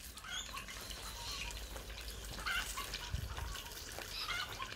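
Chicken drumsticks deep-frying in oil in a cast-iron camp oven, a steady sizzle, with short bird calls scattered over it and a low thump about three seconds in.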